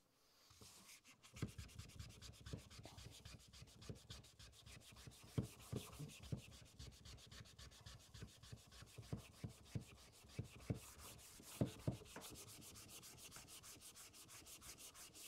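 Faint hand sanding of a wooden saw-table insert: quick, even back-and-forth strokes of abrasive on wood, with a few light knocks, taking down a high end so the insert sits flush.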